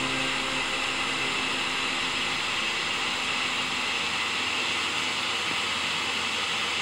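Steady air hiss from a running air-cooled fiber laser marking machine, even and unchanging throughout.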